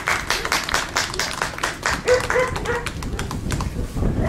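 Spectators clapping in a steady rhythm for about the first two seconds, then a dog gives a few short barks.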